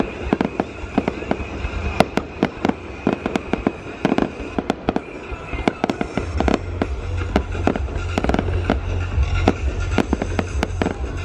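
Aerial fireworks display: a dense, irregular run of sharp bangs and crackles from shells bursting overhead, with a low rumble joining underneath about six seconds in.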